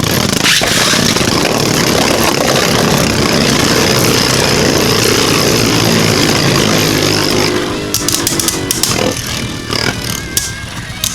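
Two Beyblade Burst spinning tops, Vise Leopard and Hazard Kerbeus, whirring and grinding against each other in a plastic stadium. The loud, dense scraping fades about seven or eight seconds in as the battle ends, followed by a few sharp clicks and clatters.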